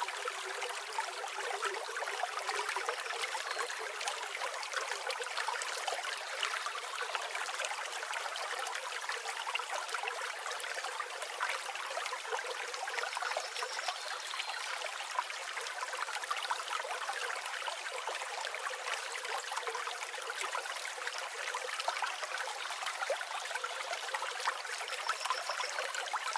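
Forest creek water babbling and trickling steadily.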